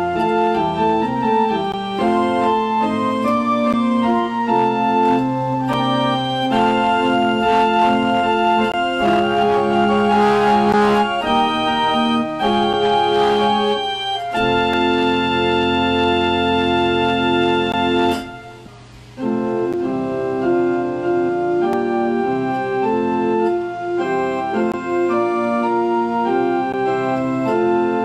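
Church organ playing the closing music of the service, moving through sustained chords, with a short break about two thirds of the way through before it carries on.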